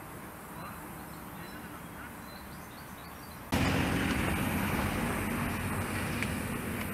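Outdoor ambient noise with faint bird chirps. About three and a half seconds in, at a shot change, it jumps suddenly to a louder, steady rushing noise with a faint low hum.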